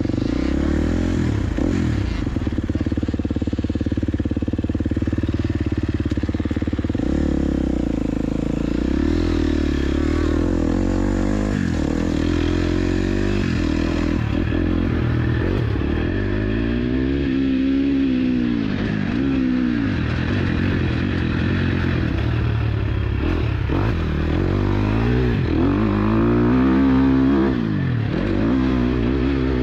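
Motorcycle engine running loud and continuous. Its pitch holds steady for about seven seconds, then repeatedly rises and falls as it is revved and shifted through the gears.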